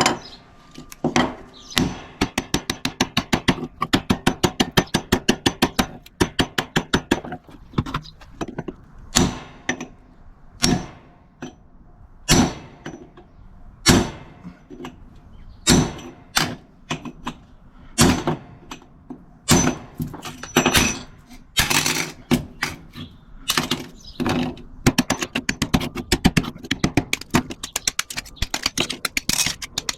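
Hammer blows on a microwave oven transformer's steel core to split it along its weld. Runs of quick light taps, about five a second, alternate with single heavier strikes, some leaving a short metallic ring.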